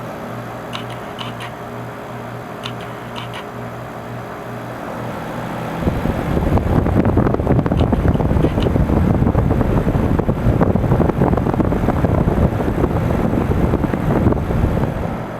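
Carrier Comfort Series 5-ton heat pump outdoor unit running with a steady hum and a few faint ticks. About six seconds in, a loud rushing of air buffeting the microphone takes over, and eases just before the end.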